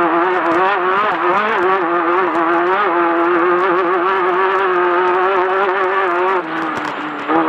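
Class 10 off-road race car engine running hard at steady high revs, its pitch wavering slightly over the terrain. Near the end the revs drop for about a second, as if off the throttle, then pick back up.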